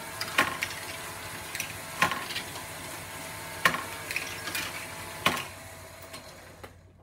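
Lego great ball contraption running: Lego motors and gears whirring while small plastic balls rattle and clatter through the modules, with a louder clack about every second and a half. The running sound fades and stops near the end.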